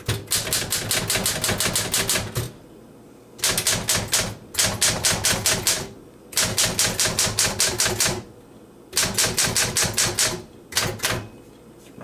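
1937 Smith-Corona manual typewriter being typed on: type bars striking the platen in quick runs of about seven or eight keystrokes a second, broken by short pauses, as the letter keys are tested row by row.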